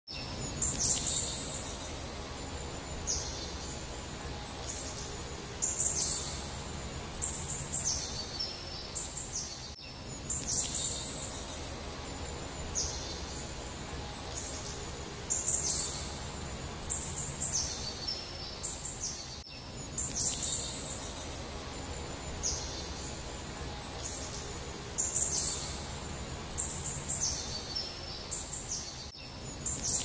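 Looped nature-sounds track of birdsong: a short run of high chirps and trills that repeats about every ten seconds, over a steady low background noise.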